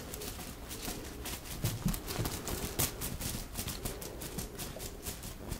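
Fingertips brushing and scratching across the reversible sequins of a sequined pouch, a dense run of fast, crisp little clicks and rustles.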